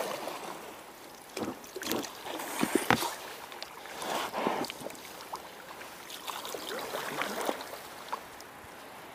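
Oar strokes splashing and swishing in the water beside an inflatable dinghy, uneven and a second or two apart, with a few sharp knocks about three seconds in.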